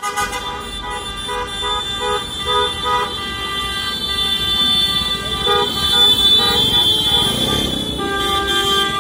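Car horns honking loudly over and over in a rhythmic pattern, over street traffic.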